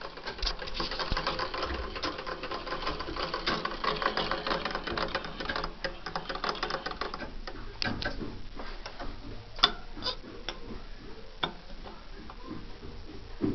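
Treadle sewing machine running, its needle and shuttle mechanism giving a fast, even clatter of clicks for about seven seconds, then slowing and stopping. A few separate sharp metal clicks follow near the end.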